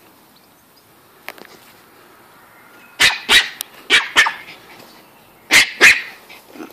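Pomeranian barking: six loud, short barks in three quick pairs, starting about three seconds in.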